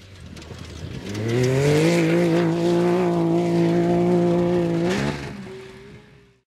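Rally side-by-side buggy's engine revving up about a second in, then holding one steady high pitch at full throttle. Near five seconds in it drops off abruptly, leaving a faint lingering tone.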